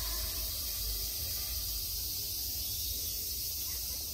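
Steady, high-pitched chorus of insects buzzing in woodland, with wind rumbling on the microphone underneath.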